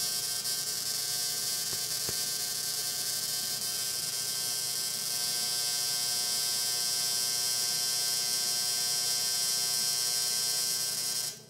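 Repaired DRSSTC (dual-resonant solid-state Tesla coil) running at low power, a steady buzz with a hiss above it that cuts off suddenly near the end. The coil is working again on its new IGBTs, its primary current waveform as it should be.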